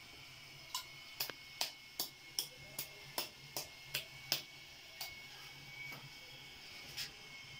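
Wet slaps and clicks of a hand pressing and patting a lump of fresh churned butter, about two to three a second, slowing and thinning out after about five seconds.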